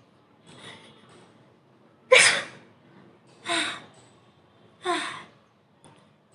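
A girl sneezing repeatedly in a fit brought on by sniffing sneezing powder (chhikni powder): a faint sneeze about half a second in, then three sharp sneezes about a second and a half apart, the first of these the loudest.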